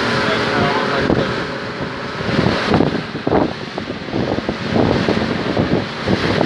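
Wind buffeting the microphone aboard a motorboat under way, gusting unevenly, over the rush of water along the hull.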